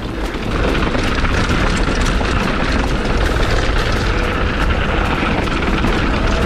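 Downhill mountain bike descending a loose gravel trail: steady wind rush on the action-camera microphone, with the tyres crunching over stones and the bike rattling in a constant stream of small clicks.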